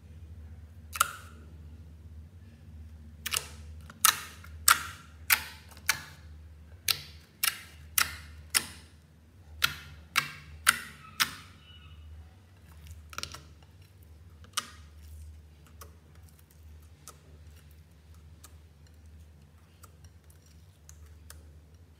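Fingertips poking into clear slime, each poke giving a sharp pop: one about a second in, then a quick run of about a dozen, one or two a second, then sparser and fainter ones, over a faint low hum.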